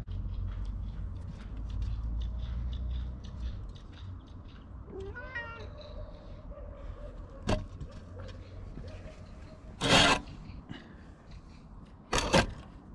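Domestic cat meowing once, briefly, about five seconds in, over a low wind rumble on the microphone. Near the end there are two short, loud rustles as the cat brushes close past the camera.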